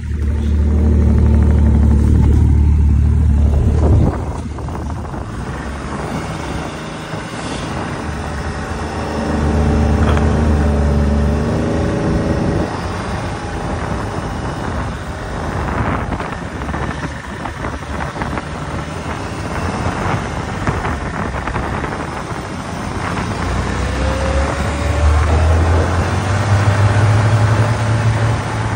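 Snowmobile engine running while riding over the snow. The engine note rises and falls with the throttle, loudest in the first few seconds, again about ten seconds in, and near the end.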